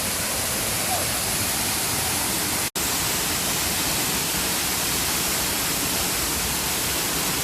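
Steady rushing of the River Nevis pouring over the rocky Glen Nevis Lower Falls. The sound cuts out for an instant a little under three seconds in.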